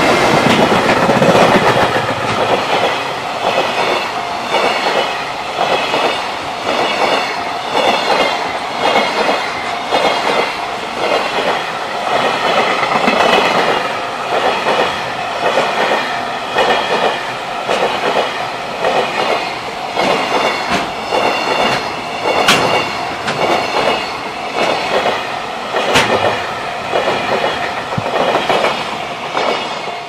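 JR Freight EF210 electric locomotive passing close at speed, then its long train of container wagons rolling by with a steady rhythmic clickety-clack of wheels over the rail joints. Two sharp clanks stand out late in the pass.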